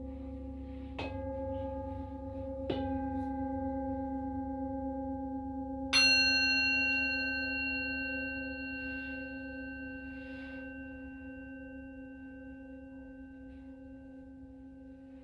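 Singing bowls struck three times, about one, three and six seconds in, the third strike the loudest and brightest, over tones already ringing from earlier strikes. The notes ring on and slowly fade, with a slow wavering in the lowest tone.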